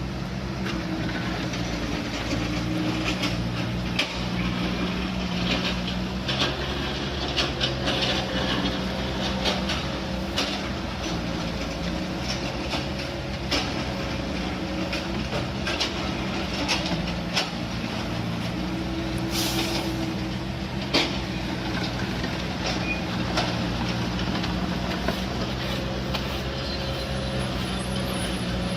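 Heavy diesel road-construction machinery running steadily, with repeated clanks and knocks throughout and a short hiss of released air about two-thirds of the way in.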